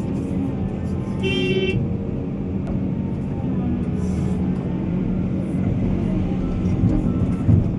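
Heavy machine engine running steadily with a deep rumble. A short horn toot sounds about a second in.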